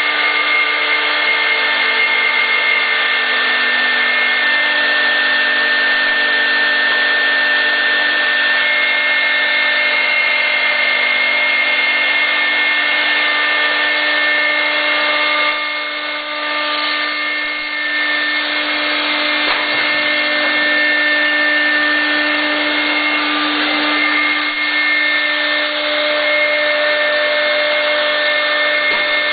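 CNC router spindle running at speed, a steady whine over the noise of the bit cutting into a wooden panel. The sound dips briefly about halfway through.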